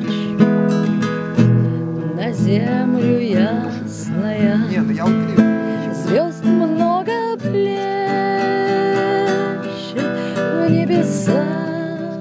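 Acoustic guitar strummed steadily, with a melody line above it that slides and bends in pitch.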